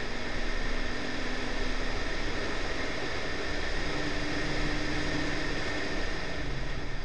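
Wind rushing over the camera mounted on the outside of a Honda Civic at track speed, with road and tyre noise and the car's B18C4 1.8 VTi four-cylinder engine faintly underneath, its pitch shifting a few times.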